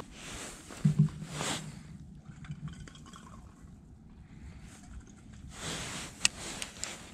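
Clothing rustle and handling noise, with two low thumps about a second in and a few sharp clicks around six seconds in.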